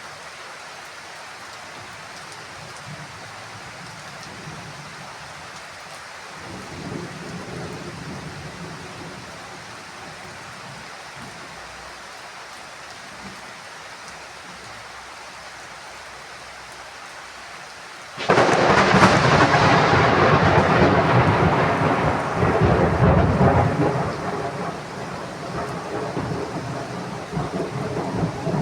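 Heavy rain falling steadily, with a low rumble of thunder about seven seconds in. About eighteen seconds in a sudden loud thunderclap breaks, then rumbles on and slowly fades.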